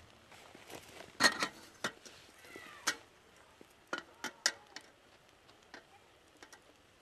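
Campfire wood crackling: a scatter of sharp, irregular pops, the loudest a little over a second in and a quick run of them around four seconds in.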